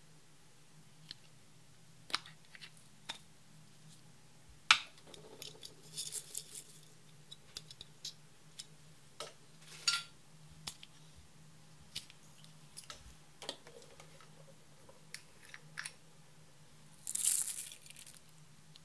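Quiet, scattered clicks and taps of plastic makeup cases being handled and set down on a wooden table. Near the end comes a brief pattering hiss of sequins and glitter poured from a small plastic cup onto clear slime. A faint low hum runs underneath.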